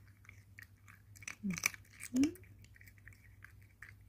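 A cat chewing chicken treats from a bowl: a steady run of small clicks and crunches. Two brief low voice sounds break in, one falling about a second and a half in, one rising just after two seconds.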